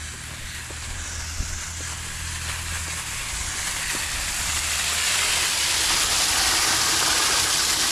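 Water rushing out of an open outlet on a freshly repaired main water line, a steady hiss that slowly grows louder.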